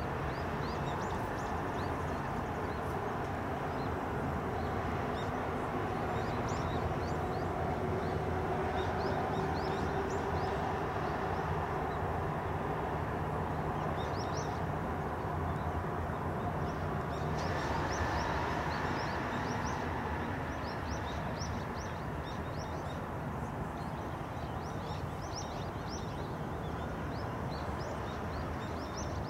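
Small birds chirping over and over above a steady low drone. The background shifts slightly a little past the middle.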